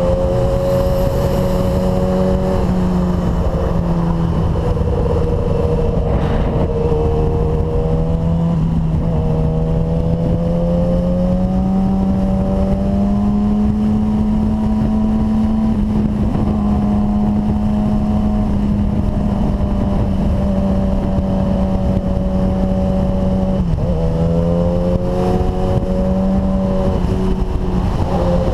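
Suzuki GSX-R750 sportbike's inline-four engine running at highway speed, heard from on the bike: a steady engine note that climbs slowly in pitch and dips briefly twice, over a constant rush of road and wind noise.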